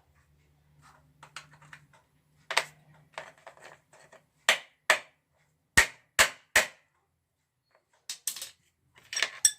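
Sharp, separate knocks and taps of kitchen utensils, with three quick taps in a row about halfway through and small clusters of clicks near the end.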